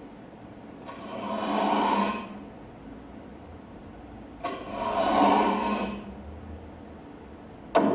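Two slow swells of rasping, scraping noise, each lasting about a second and a half with a pause between them, then a single sharp knock near the end.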